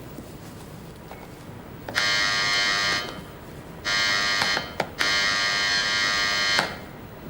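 Electric apartment doorbell buzzer rung three times: a ring of about a second, a shorter one, then a longer one, with small clicks between the rings.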